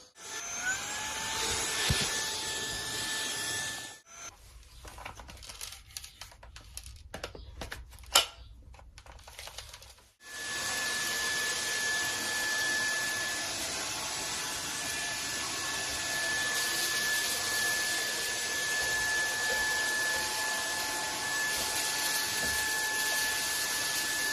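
Ultenic U18 Pro cordless stick vacuum switched on, its motor whine rising as it spins up, then running for a few seconds. It stops, leaving some seconds of handling knocks and clicks with one sharp click about eight seconds in. About ten seconds in it starts again and runs steadily with a high whine.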